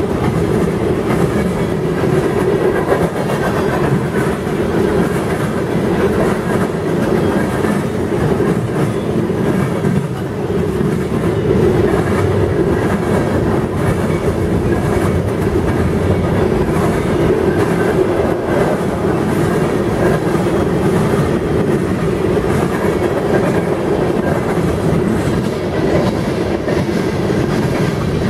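Freight cars of a passing mixed freight train rolling by at speed: steady noise of steel wheels running on the rails, with light repeated clicking.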